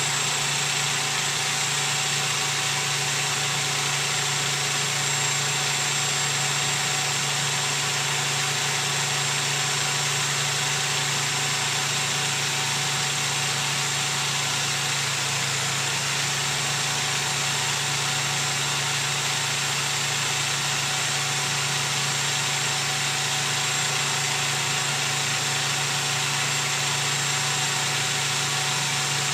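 Line-boring equipment running steadily, a constant machine hum with no change in pitch or level.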